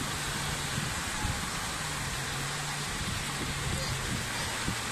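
Small sea waves breaking and washing up over the sand at the shoreline: a steady rushing wash, with a faint low hum that comes and goes.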